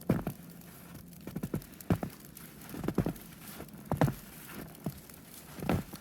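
Footsteps crunching through deep snow at a slow walking pace, about one step a second.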